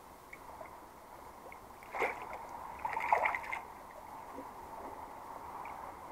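Water splashing as a caught fish is handled in a landing net at the pond's surface: one sharp splash about two seconds in, then a short flurry of splashes about a second later.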